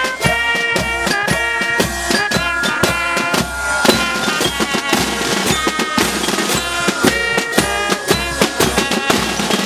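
Marching band playing a march: snare drums and a bass drum beat out a steady rhythm, with a held melody over them that drops back about four seconds in and returns later.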